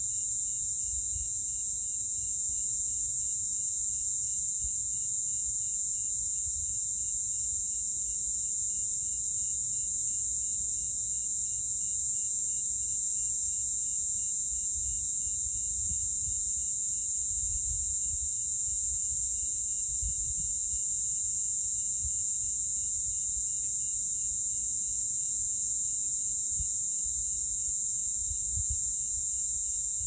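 Night chorus of cicadas: a steady, high-pitched, unbroken buzz, with a fainter finely pulsing trill beneath it. An uneven low rumble sits under the chorus.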